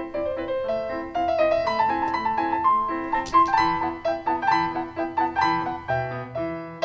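Intro music: a piano playing a quick melody of struck notes in a steady rhythm.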